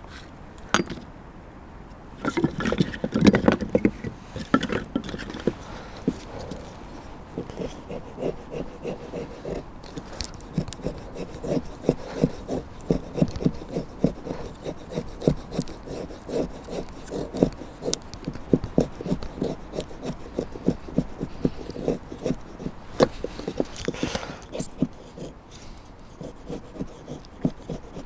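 Split wood and a knife being handled, then a knife blade shaving thin curls off a stick of split kindling in quick, repeated scraping strokes, making wood shavings for fire tinder.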